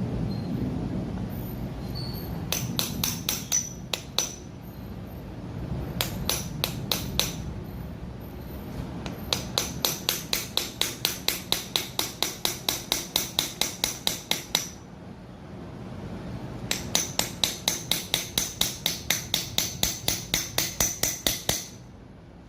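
Quick light hammer taps on metal, about four or five a second, ringing a little. They come in four runs, the last two several seconds long, as a tight-fitting part of a semi-hermetic compressor is worked loose.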